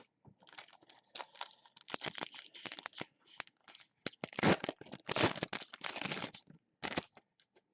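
A trading card pack wrapper being torn open and crinkled: a run of noisy rustling and tearing strokes, loudest past the middle.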